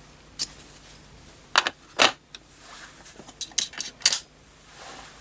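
Light metallic clicks and clinks of small steel screwdriver bits and the driver handle being handled, a few separate taps, then a quick cluster of them just before the end.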